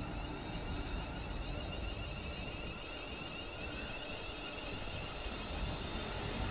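Electric multiple-unit train standing at the platform, its onboard equipment giving a steady hum and hiss with a faint high rippling whine.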